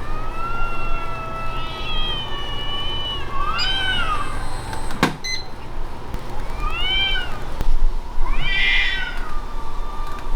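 Two cats screaming at each other in a standoff: one long drawn-out wail, then several rising-and-falling yowls. There is a sharp click about five seconds in.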